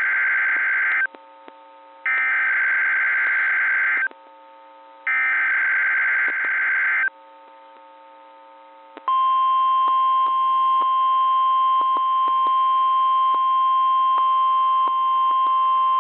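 NOAA Weather Radio Emergency Alert System SAME header: three warbling digital data bursts of about two seconds each, a second apart, marking the start of a new alert. About nine seconds in, the single steady 1050 Hz weather-radio alert tone comes on and holds, with faint ticks of static through it, all heard through a radio receiver.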